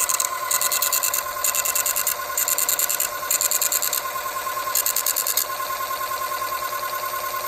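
Electronic tone from in-car police equipment, steady with a rapid buzzing flutter, joined by six short bursts of high hiss about one a second that stop about five and a half seconds in.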